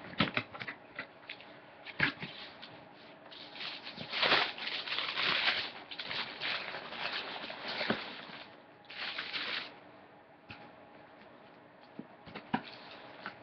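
A cardboard shoebox and its paper wrapping being handled and opened: crinkling rustles, loudest from about four to six seconds in and again briefly about nine seconds in, with scattered clicks and knocks.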